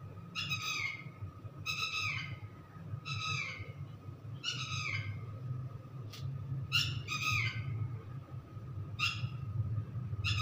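A bird's short calls, each falling in pitch, repeated every second or so over a steady low hum and a thin constant tone.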